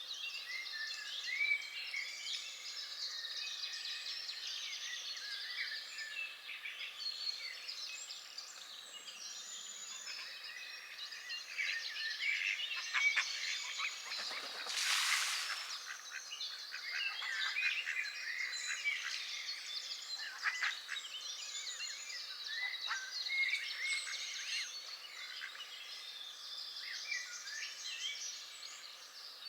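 A chorus of many songbirds singing and chirping at once, dense and continuous. About halfway through, a brief rushing noise swells and fades over a second or so.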